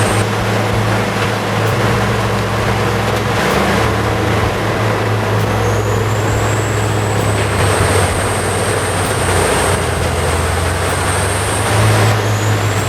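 Heavy wood-processing machine's engine running steadily under load, with a high whine that rises about halfway through and again near the end.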